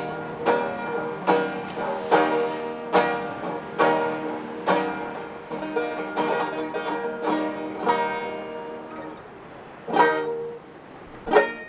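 Instrumental passage of a folk song led by a plucked banjo, with a strong strum about every 0.8 s. The playing thins out near the end, leaving two single loud strums.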